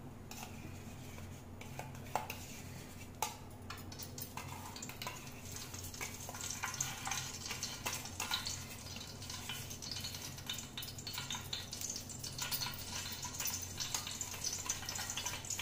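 A metal spoon clicking and scraping as it digs solid ghee out of a steel container and drops it into a hot metal pan, over a steady low hum. From about five seconds in, a faint crackling sizzle builds as the ghee melts in the hot pan.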